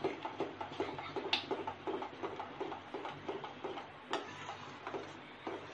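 A spoon stirring thick curdled milk in a metal pan, mixing in almond paste: wet, squelching strokes at about three to four a second, with a couple of sharper clicks of the spoon against the pan.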